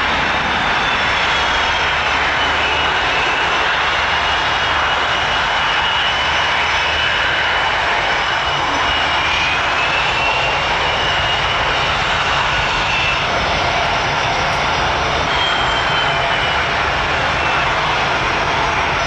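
KAI T-50B jet trainers' turbofan engines running: steady loud jet noise with a high whine that slides slowly down and then up in pitch.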